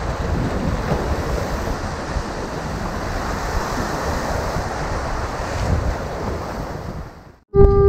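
Surf washing and breaking over the jetty rocks, with wind buffeting the microphone. The sound fades out shortly before the end, and then a loud steady tone with overtones cuts in abruptly.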